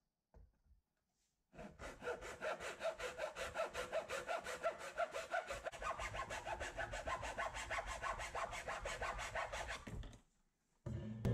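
Hacksaw cutting through the wooden bow tip of a model boat in quick, even back-and-forth strokes. It starts about one and a half seconds in and stops near the end as the broken tip comes off.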